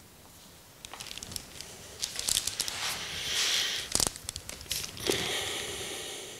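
Clicks and handling noise of a bottle of anti-silicone degreaser, then hissing as the liquid is put onto the oily metal lid of a filler can. There is a cluster of sharp clicks about four seconds in, and a second hiss about a second later that fades away.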